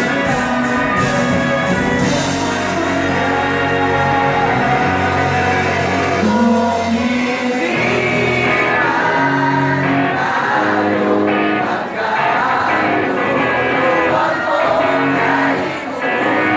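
A rock band playing live through a PA, with a voice singing over electric guitars, bass and drums.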